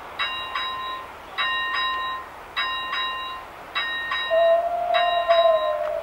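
A railway level-crossing warning bell ringing in pairs of strikes, about one pair every 1.2 seconds. About four seconds in, the steam whistle of locomotive 423.0145 starts a long, steady blast that is louder than the bell.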